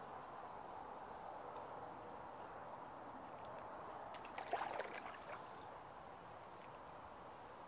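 A small fish splashing and flapping as it is pulled out of the water on a handline: a short burst of splashes and clicks about halfway through. Under it is a steady background rush.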